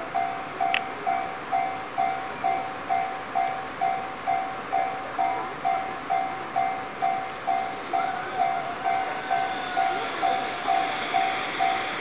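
Japanese level-crossing warning bell ringing its repeating two-tone 'kan-kan' chime, about two strikes a second. From about eight seconds in, the rising rail noise of the approaching freight locomotive grows beneath it.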